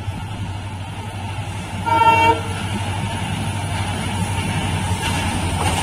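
Short single blast of a WDP4D diesel locomotive's horn about two seconds in, over the low rumble of the approaching train, which slowly grows louder.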